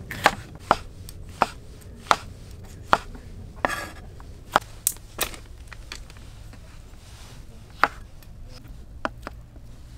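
Kitchen knife cutting eggplant slices on a cutting board: sharp chops about one every two-thirds of a second at first, then fewer and further apart, with a short scraping sound about four seconds in.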